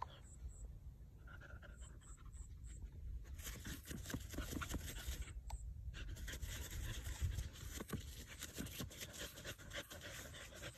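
Dog digging in loose soil, its claws scratching and scraping the dirt in quick irregular strokes. The scratching is fainter at first, thickens about three seconds in, and stops briefly a little past the middle.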